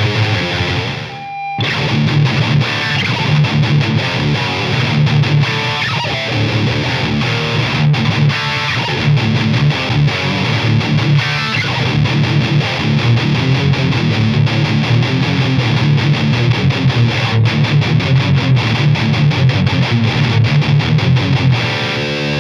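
Electric guitar, a Gibson Les Paul Studio, played through a Mesa Mini Rectifier 25 head and a mic'd 1x12 cabinet with heavy distortion. It plays fast heavy-metal riffs, with a short break about a second and a half in.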